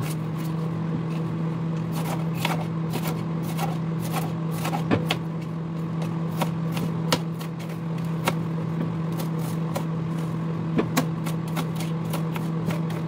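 Chef's knife chopping red bell pepper on a wooden cutting board: irregular taps of the blade striking the board. A steady low hum runs underneath.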